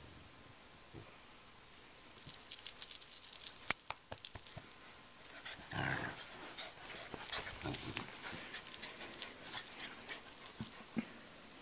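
Cocker spaniel growling in short bursts, about six seconds in and again near eight, while tugging on a rope toy. Scratchy rattling clicks from the tug come in a cluster a couple of seconds in.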